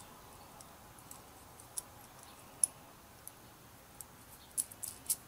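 Faint, scattered metallic ticks and clicks of small hardware handled by fingers: a nut being put on by hand onto a small machine screw that passes through a chain, with a few quicker clicks near the end.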